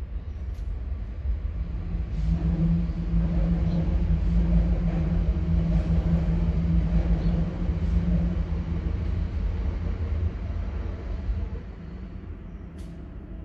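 A motor vehicle's engine running close by: a steady low hum that swells a couple of seconds in, holds for several seconds, then dies down near the end.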